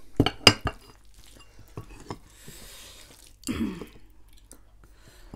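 A ceramic bowl of dal with a spoon in it set down on a wooden table: a few sharp clinks and knocks in quick succession in the first second, with a short ring. Faint handling and eating sounds follow.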